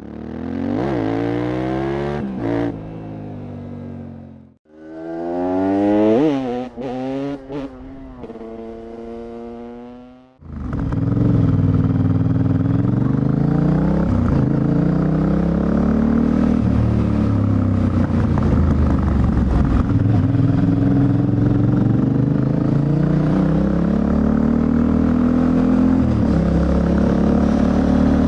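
Yamaha Ténéré 700's CP2 parallel-twin engine revving in two short bursts that each cut off suddenly. Then it runs loud and continuously under way, its pitch rising and dipping again and again.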